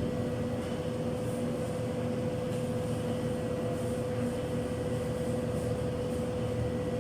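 Human ELISA analyser running with a steady hum and one constant mid-pitched whine.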